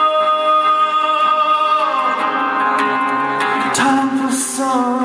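Male voice singing live with ukulele accompaniment, holding one long note for about two seconds before moving on through shorter notes.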